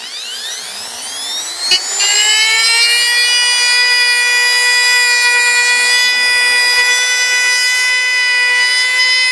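Dremel rotary tool with a sanding bit spinning up: a whine that rises in pitch over the first two to three seconds, then runs as a steady high whine while it sands epoxy and foam out of a surfboard's fin-box slot. A brief click comes just under two seconds in.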